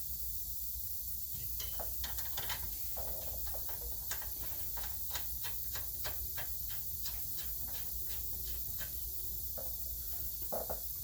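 Hand ratchet clicking in a steady series, about three clicks a second, as the bolts of a newly fitted rear wheel hub assembly are run in, followed by a couple of duller knocks near the end, over a steady hiss.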